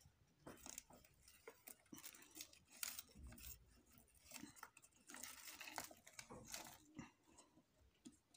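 Faint crinkling and rustling with scattered small clicks: a self-adhesive LED strip and its peeled backing being handled and pressed down along a wooden frame.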